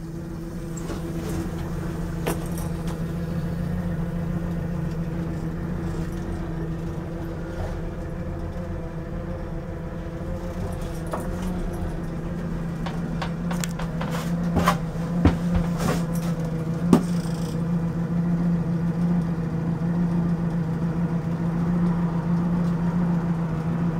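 A steady low machine hum, with several sharp knocks about two-thirds of the way through.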